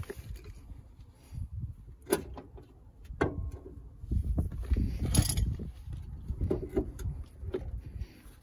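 Scattered metal knocks and clicks as a new front strut is worked by hand into the rusty steering knuckle collar, which is held open with a chisel. The loudest knock comes about five seconds in.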